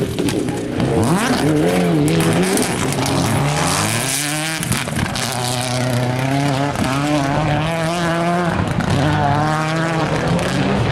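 Škoda Octavia rally car's engine working hard through a tight hairpin. Its note falls as the car brakes into the turn, wavers on the throttle through the corner, then rises again in repeated pulls as it accelerates away.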